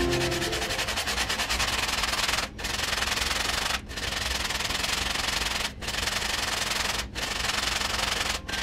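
Hand-sanding a round wooden disc face-down on sandpaper glued to a board: a steady, rapid scratchy rasp as the wood is rubbed back and forth, broken by short pauses every second or two.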